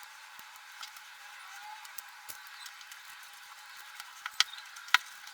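Faint rubbing and scattered small ticks from cleaning old glue residue off a speaker driver's frame, with two sharper clicks about a second and a half before the end.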